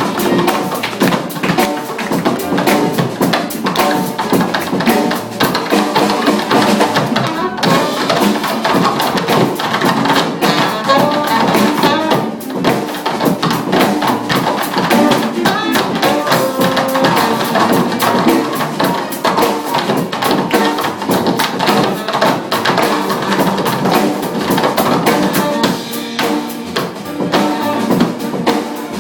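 A funk band playing, with a busy drum kit and bass drum driving the rhythm.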